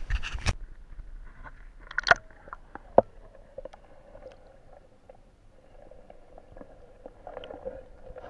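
Scattered knocks and clicks of handling on a small fishing boat, the loudest about two seconds and three seconds in, over a faint steady hum.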